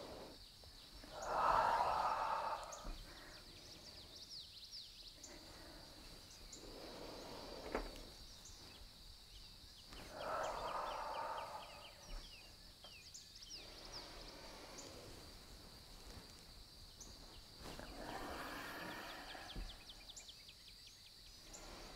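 Slow, audible ujjayi breathing through a narrowed throat: three long breaths about eight seconds apart, the first the loudest, with one brief tap near eight seconds and faint high chirps in the background.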